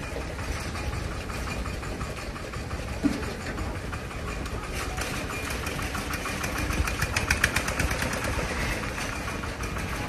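Motor of building-site machinery running steadily, with a fast metallic rattle that builds from about the middle and is loudest shortly before the end.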